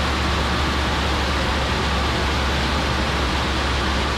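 DLX-150B 'Firebolt' regeneratively cooled liquid-oxygen/ethanol rocket engine firing steadily: a loud, even roar with a steady low hum beneath it. The engine is running at a much lower chamber pressure and a wrong mixture ratio, with significant combustion instability.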